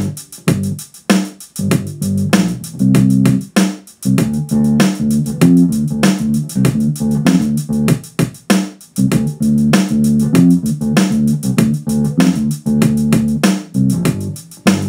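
Recorded music with drums, bass guitar and guitar, played through a small full-range PA speaker with no subwoofer connected. On the loud bass notes the speaker is beginning to break up, with a little distortion in the bass because it can't handle the level.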